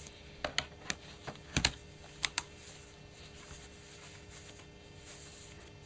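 Base plate of a Titanium PowerBook being set into place and pressed down: a quick run of light metallic clicks and taps, about seven in two seconds, followed by soft rubbing as fingers slide over the plate.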